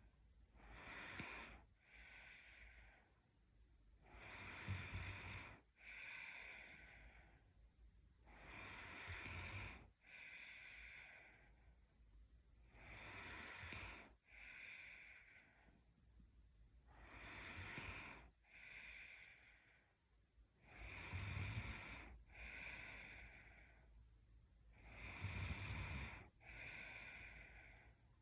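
Sleeping woman breathing slowly and heavily with light snoring: a breath in and a breath out about every four seconds, seven times over.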